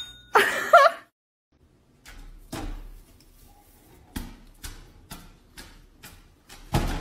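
A desk call bell dings briefly at the start, followed by a short pitched cry. Then a clear plastic pet flap in a glass door clacks in its frame, a string of sharp taps about two a second.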